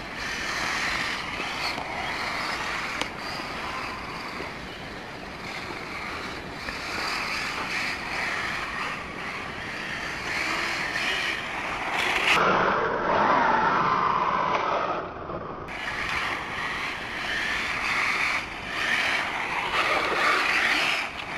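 Tamiya TT-01 electric RC touring car driving on asphalt: a steady whine of its motor and gears with the rasp of its small tyres on the road, growing louder and wavering in pitch for a few seconds about halfway through.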